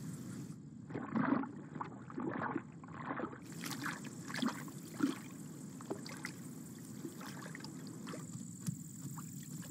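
Water splashing and sloshing at a desert waterhole in irregular bursts, strongest in the first few seconds, over a faint steady background.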